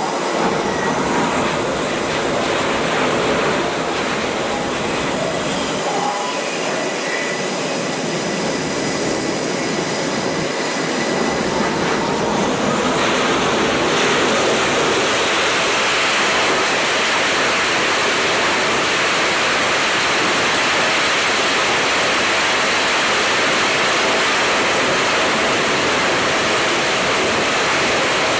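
F/A-18 jet engines running on an aircraft carrier's catapult: a loud, steady noise with faint whining tones at first. About halfway through, the noise turns brighter and a little louder as the engines are run up toward launch power.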